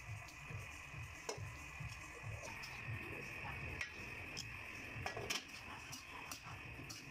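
A metal spatula scrapes and clinks now and then against an aluminium wok as a thick, simmering coconut-milk stew of taro leaves and squid is stirred, over a steady low rumble and hiss.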